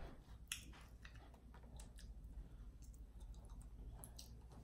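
Faint, scattered clicks of a boiled crawfish's shell being cracked and peeled apart by hand.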